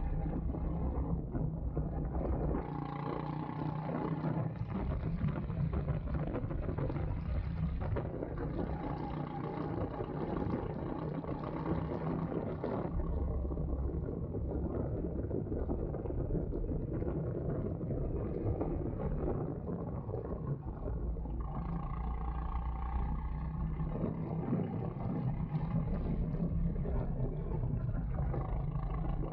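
Go-kart engine running continuously on track, its sound shifting every few seconds as the throttle opens and closes.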